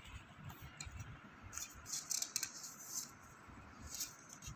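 Faint rustling and light scraping of paper flashcards being picked up and handled, in scattered short bursts.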